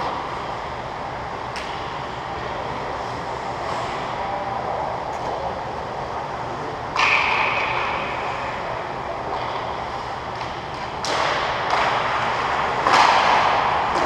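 Ice hockey game in a reverberant indoor rink: a steady hiss of arena noise with sharp knocks about seven, eleven and thirteen seconds in, each echoing on through the hall.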